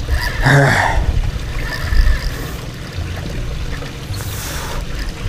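Wind buffeting the microphone as an uneven low rumble, with a short vocal exclamation about half a second in.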